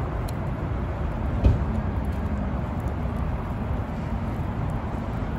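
Steady outdoor noise, heaviest in a low rumble, with a single thump about one and a half seconds in.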